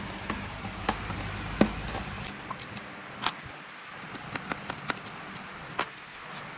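Scattered light clicks and taps of hands handling laptop parts, over a low hum that stops about two seconds in.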